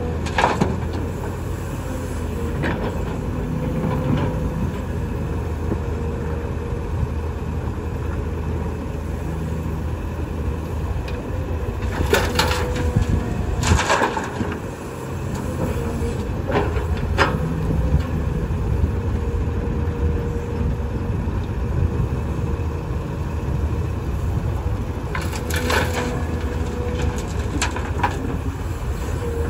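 SANY SY215C hydraulic excavator's diesel engine running steadily under load while it digs and swings to load a dump truck, with a few short knocks and clatters about midway and again near the end as the bucket works and soil drops into the steel truck bed.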